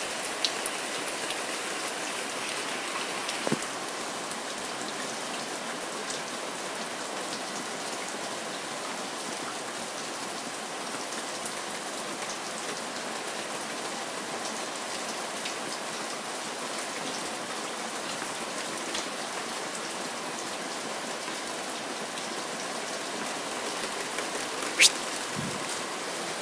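Steady rain falling, with scattered sharp ticks of drops and one louder click near the end.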